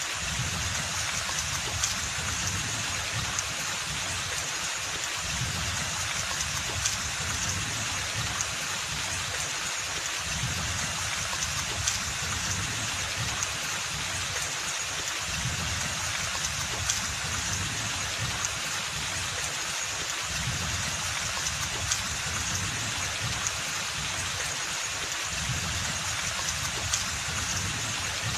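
Steady rain falling on forest foliage, an even hiss with a sharper drip tap about every five seconds.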